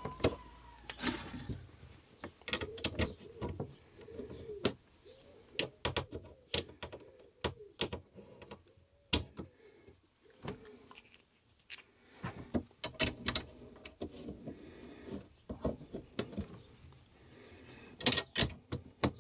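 Irregular sharp plastic clicks and taps as a speaker grille is handled, lined up and pressed onto a dashboard speaker, with a quick flurry of clicks near the end.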